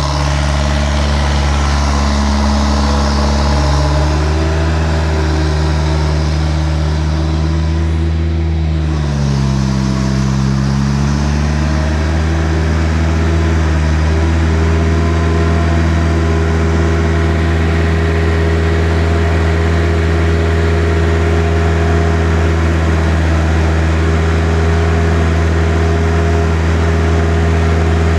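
Engine running at a steady speed. About nine seconds in it slows briefly, then comes back up to speed.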